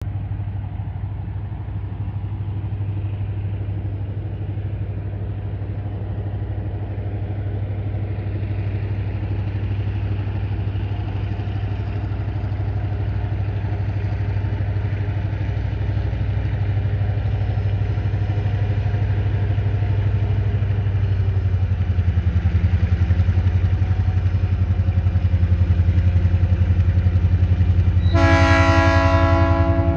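TasRail diesel locomotives working hard up a grade, a low engine drone that grows steadily louder as the train approaches. Near the end the locomotive's horn sounds, a chord of several tones held past the end.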